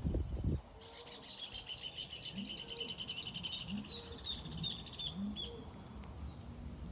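A songbird singing a rapid series of high chirps for about five seconds, over a lower call that repeats roughly every second and a half. A loud low sound fades out in the first half second.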